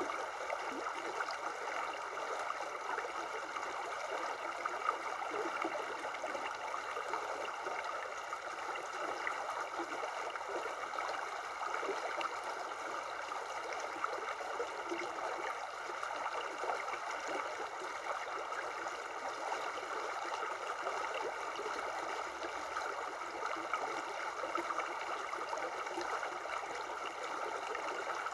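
Shallow river running over a rocky riffle: a steady babble of flowing water.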